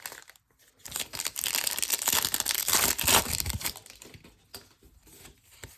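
A foil trading-card pack wrapper crinkling and tearing as it is ripped open, a dense crackly rustle from about a second in until just before four seconds, then only faint handling.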